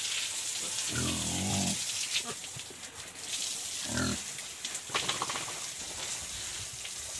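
A pig grunting twice, once about a second in and briefly again about four seconds in, over the steady hiss of a hose spraying water on the pen floor and the pig.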